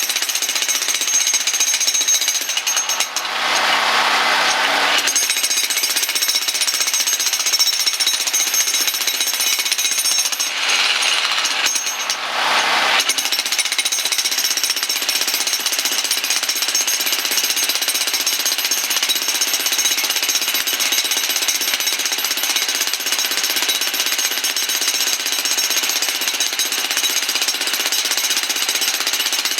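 Electric hammer pounding into a concrete pier, running as one steady, rapid hammering. The tone shifts briefly twice, about three and eleven seconds in.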